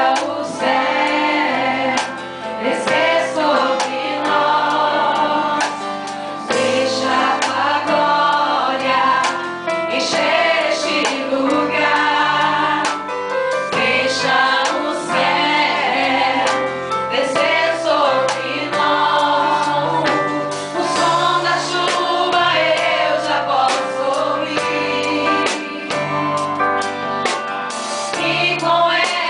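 Congregational worship music: a choir of voices singing a Portuguese-language gospel worship song over steady instrumental accompaniment.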